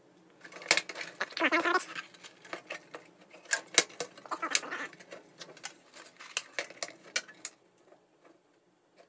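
Hands handling a computer power supply and its cables in a PC case: a run of small clicks, knocks and rustles, with a short squeaky sound about a second and a half in. The handling stops about seven and a half seconds in.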